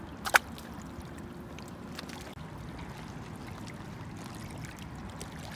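Shallow seawater lapping and trickling against shoreline rocks, with one brief sharp splash about a third of a second in as the released grunt is dropped back into the water.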